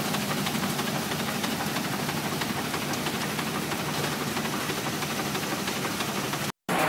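Antique steam fire engine running its pump steadily, mixed with water gushing from the discharge hose and splashing into a tank.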